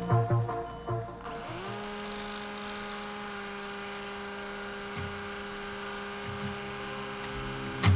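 A steady electric hum with even overtones that rises briefly in pitch and then holds one pitch.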